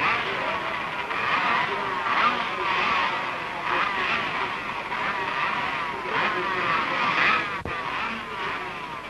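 Several high-revving 50cc two-stroke racing motorcycle engines, all going at once. Their high, buzzing pitch keeps rising and falling as they are revved.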